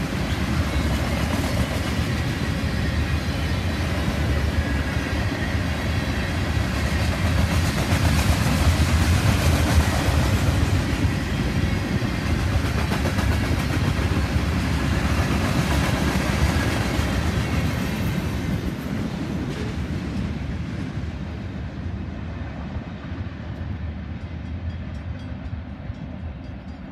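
Norfolk Southern grain train of covered hopper cars rolling past, its steel wheels rumbling and clicking on the rails. About twenty seconds in, the last cars go by and the sound fades away.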